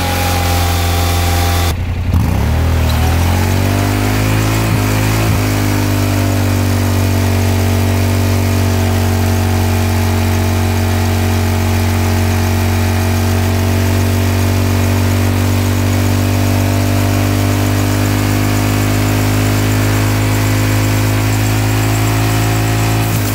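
Motorcycle engine held at high revs during a burnout, the rear tire spinning in place. The revs briefly dip and climb again a couple of seconds in, then hold steady.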